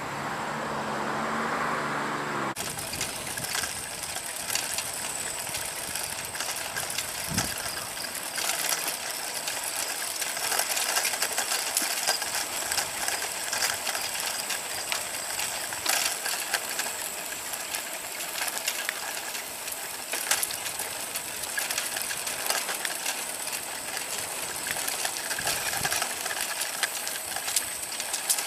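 Bicycle riding along an asphalt path: a steady rushing noise full of small rattling clicks, with a faint steady high whine over it. It opens with a low pitched drone for about two and a half seconds that cuts off suddenly.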